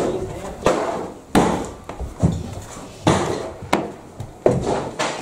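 Footsteps climbing a staircase: a run of dull thuds, about one every second or a little faster.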